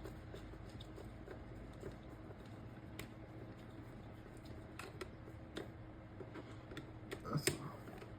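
Faint, scattered small clicks and ticks of a 2 mm hex key working a screw loose on a plastic transmitter screen mount, with a short cluster of louder clicks about seven seconds in.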